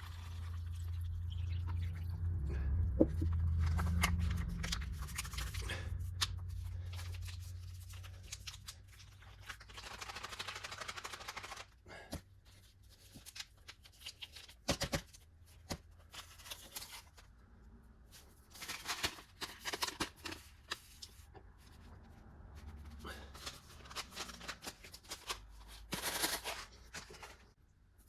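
Plastic and foil packaging being handled: crinkling, rustling and tearing in short spells with scattered clicks. A low hum runs under the first several seconds and fades out.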